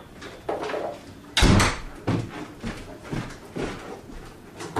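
A front door shutting with a sharp thud about a second and a half in, followed by several lighter knocks and steps.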